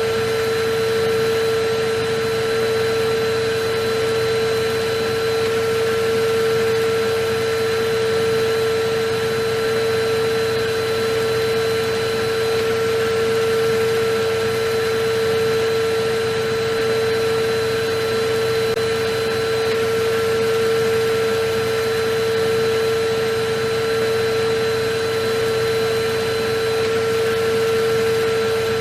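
Electric vacuum cleaner running steadily: a constant motor whine over an even rush of air, with no change in speed.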